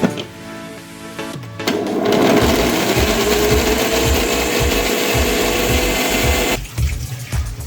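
Electric mixer grinder running at full speed for about five seconds, starting about two seconds in and cutting off suddenly near the end, its motor pitch rising slightly as it runs.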